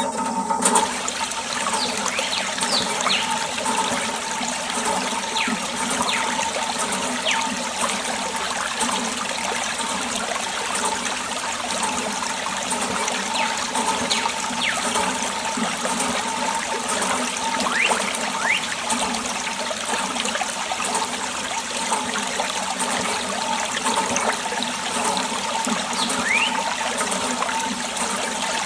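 Water running and splashing steadily, a continuous wash of water noise.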